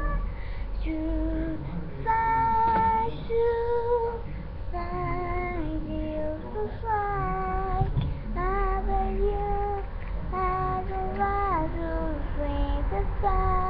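A high voice singing a melody, with held notes that slide from one pitch to the next, over a low rumble.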